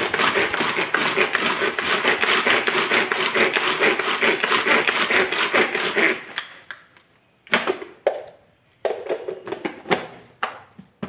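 Hand-pulled cord vegetable chopper chopping onion: the cord is yanked over and over in a fast, rattling rhythm for about six seconds, the blades spinning inside the plastic bowl. Then come a few shorter, separate bursts.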